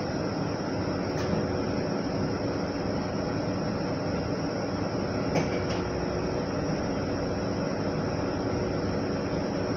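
City bus interior noise while riding: steady engine and road rumble, with two brief sharp rattles or knocks, one about a second in and another about five and a half seconds in.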